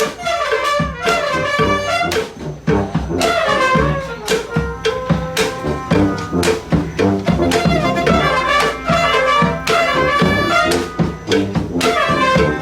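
Brass street band playing a tune: horns over a steady drum beat.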